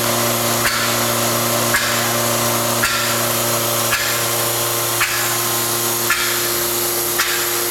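Turbonetics Duo-35 blow-off valve being cycled on a durability test rig at 15 psi, firing with a sharp click and a short burst of air about once a second, seven times, over the steady hum of the rig's compressor setup.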